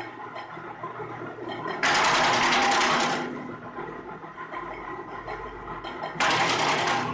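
Wood chipper running steadily, twice chewing through wood with a loud, harsh grinding burst: one about two seconds in lasting over a second, another shorter one near the end.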